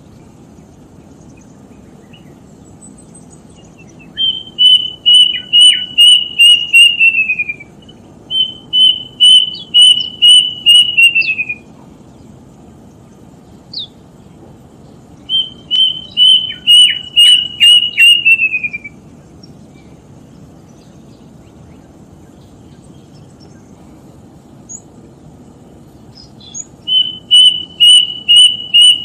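A bird repeating its call: phrases of about eight or nine rapid, evenly spaced whistled notes on one high pitch, each phrase sliding down at the end. It sings three full phrases with pauses of a second to several seconds between them, and starts a fourth near the end.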